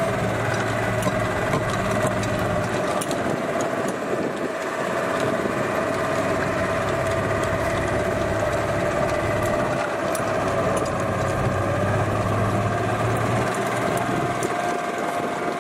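Golf cart driving along, its motor running steadily with a constant whine and a low hum that swells and eases.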